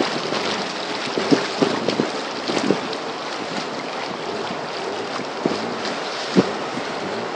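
Rushing white water of river rapids around a pirogue, a steady noise with irregular splashes and slaps against the boat, the sharpest about six seconds in, and wind buffeting the microphone.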